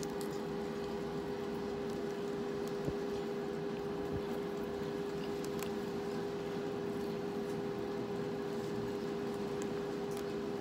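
A steady hum with one constant mid-pitched tone, like a motor or appliance running, with a couple of faint clicks about three and four seconds in.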